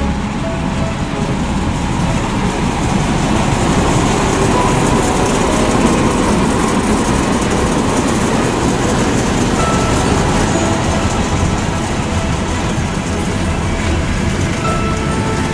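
DB Class 218 diesel-hydraulic locomotive passing close with a passenger train, its diesel engine running under power and growing louder to a peak about five to seven seconds in, then the coaches rolling by behind it.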